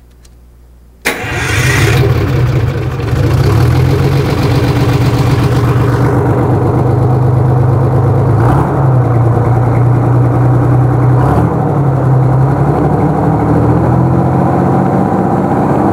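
Roots-blown Detroit Diesel 6V71 two-stroke V6 diesel starting about a second in, then running steadily and loud.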